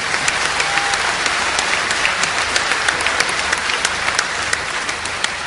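Large audience applauding, a dense even clapping that slowly dies down near the end.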